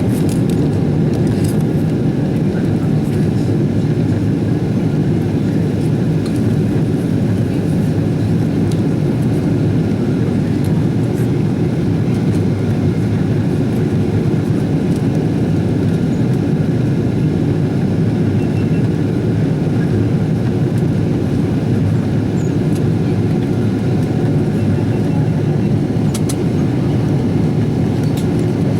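Steady roar inside the cabin of a Boeing 777-200ER climbing after takeoff: jet engine and airflow noise, even and unbroken.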